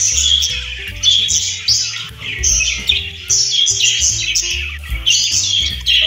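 Budgie chattering with a dense run of rapid chirps and warbles, over background music with held low notes.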